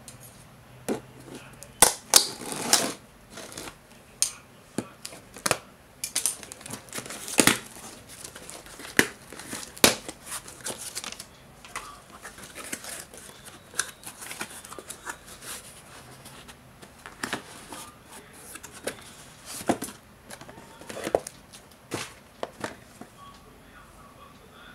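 Irregular clicks, knocks and plastic crinkling from small objects and packaging being handled.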